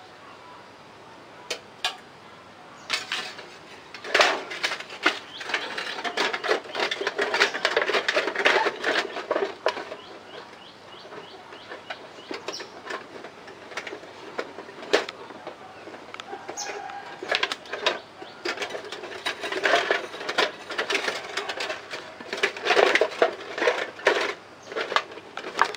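Crinkling and rustling of a stiff green plastic sheet being folded and handled by hand, in dense runs of quick crackles starting about four seconds in, easing off in the middle and picking up again near the end.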